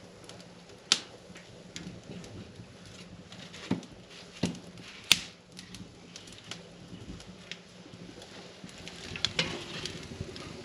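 Wood fire crackling in a clay cooking stove, with scattered sharp pops and knocks of sticks being fed into the flames; the loudest pop comes about halfway through, with a cluster of smaller ones near the end.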